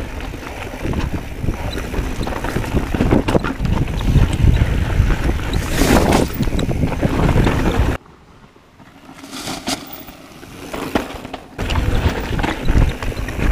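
Mountain bike descending a rough dirt trail: wind buffeting the camera microphone over the rumble and rattle of tyres and frame on the ground. It drops off suddenly about eight seconds in, stays much quieter for a few seconds, then comes back loud near the end.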